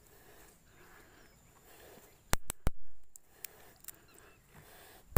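Faint outdoor background broken by sharp knocks: two close together a little past two seconds in, each with a short trailing noise, and another near the end.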